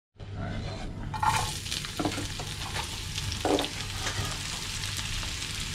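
Sliced peppers and onions sizzling in a frying pan, with a few knocks and scrapes as a knife pushes chopped tomatoes and scallion off a wooden cutting board into the pan. The sizzle comes in about a second in.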